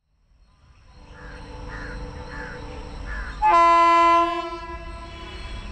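A train horn sounds one long, steady blast about three and a half seconds in, holding for about a second before it fades, over a low rumble. Before it, a bird calls four times.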